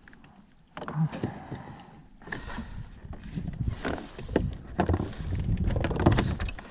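Handling noise in a plastic fishing kayak: rustling and irregular knocks and clicks of gear against the hull as the angler reaches for gear on the side rail, loudest near the end.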